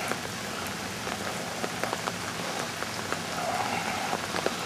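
Steady hiss of rain and running stormwater, with many scattered sharp ticks of drops.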